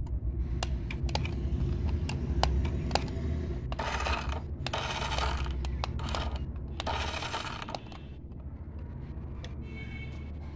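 Plastic toy RC car handled close to the microphone: sharp clicks and rattles, then two bursts of hissing noise around four and seven seconds in, over a steady low rumble.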